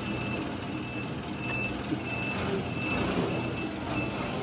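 Vehicle reversing alarm beeping steadily, about two short high-pitched beeps a second, over low background noise.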